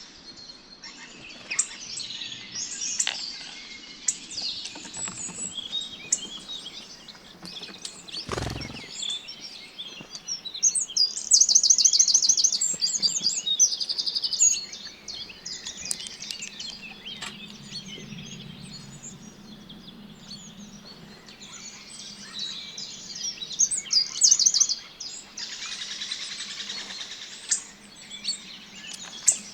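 Several small songbirds singing and chirping at once, with a loud, fast trill of rapidly repeated notes about a third of the way in and again later. A single brief low thump comes about eight seconds in.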